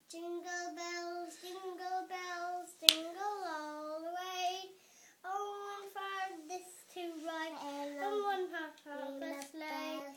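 A young child singing a tune in held, stepping notes, with short breath breaks. A single sharp click or clap cuts in about three seconds in.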